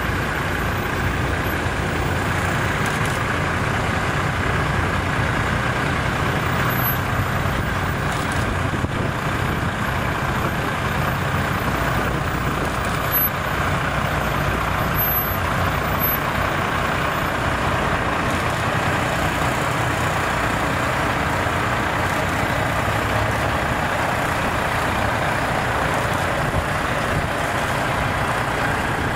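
Diesel engines of a line of bonneted prime movers rolling slowly past, a steady, even rumble with no distinct events.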